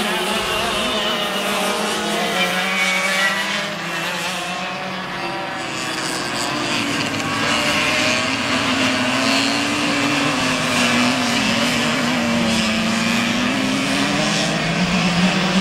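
Several racing kart engines running together as a pack of karts passes. Their overlapping pitches rise and fall.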